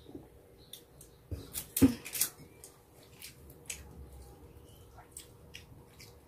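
A glass mug set down on a table with a knock about two seconds in, among a cluster of clicks; then scattered small clicks and smacks of chewing and of fingers tearing roasted chicken.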